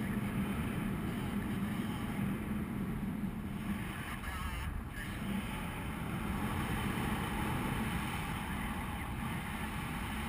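Steady wind rushing over the microphone of a camera carried by a paraglider in flight, a constant low rumbling noise.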